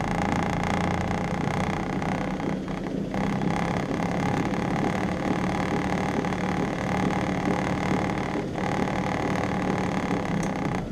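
An electric motor-driven appliance running steadily at a high setting, with a constant hum and whine, that drops off sharply near the end.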